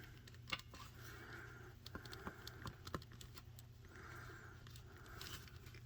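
Faint, scattered small plastic clicks and taps as a swap-out hand is worked onto an action figure's wrist.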